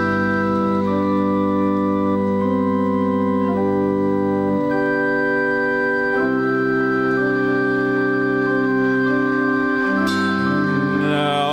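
Organ holding sustained chords that change every second or two, closing out a slow pop ballad. Near the end a man's singing voice comes back in with vibrato.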